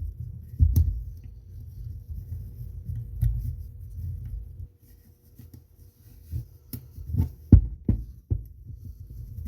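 Handling knocks and sharp plastic clicks from a WorkSharp belt knife sharpener as a stropping belt is fitted, several clicks bunched together near the end, over low thumping handling noise.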